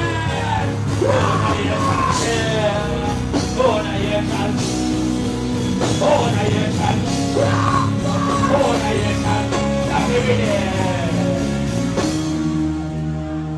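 Loud dancehall backing track over a sound system, with a man's voice delivering his lyrics into a microphone, the pitch sliding and bending. About twelve seconds in, the bass drops out and the beat thins.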